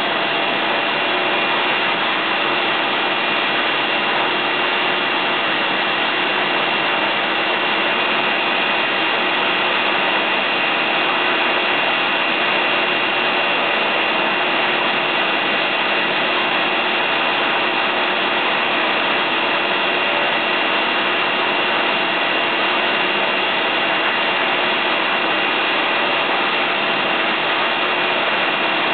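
Water tunnel running during a turbine test, the flow at 2 m/s and the turbine spinning at 25 revolutions a second: a steady mechanical whir and hiss with several constant whining tones over it, unchanging in level.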